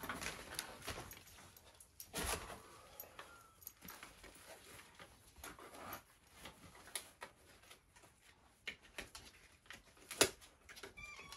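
Quiet handling sounds of a metal hand tool and its paper packaging: scattered small clicks and taps with light rustling, and a sharper click about ten seconds in.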